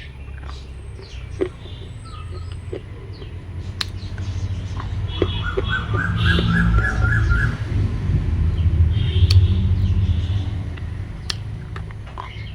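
A bird calling a quick run of about seven short, evenly spaced notes, over a low rumble that swells and then fades, with a few sharp clicks.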